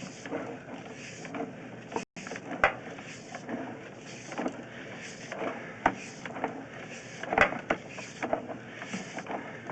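Irregular clicks, knocks and rattles of equipment being handled, over a steady hiss.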